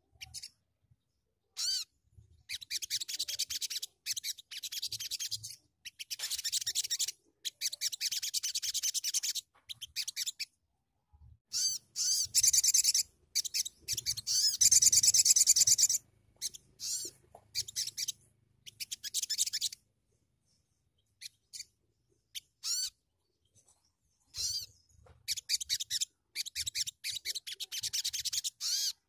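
Caged sunbird singing in repeated high, rapid phrases of one to three seconds, with short pauses between them; the loudest phrases come about halfway through.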